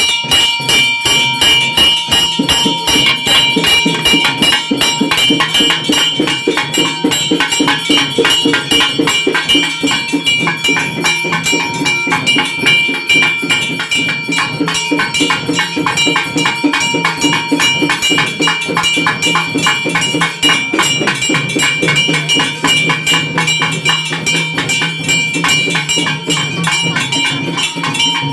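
Temple bells clanging and percussion beating in a fast, steady rhythm during worship, with the bells' ringing tone held throughout.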